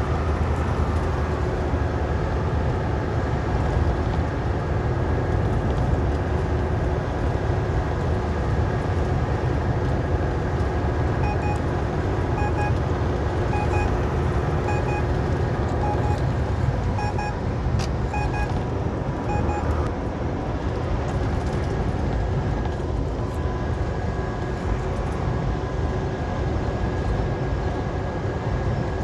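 Steady low drone of a semi-truck's diesel engine and road noise, heard inside the cab at highway speed. Starting about eleven seconds in, a run of short, evenly spaced electronic beeps repeats for about eight seconds.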